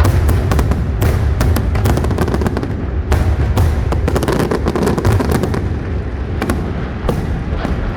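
Fireworks display: a dense run of sharp bangs and crackles over a continuous low rumble of shell bursts, thinning out a little in the last couple of seconds.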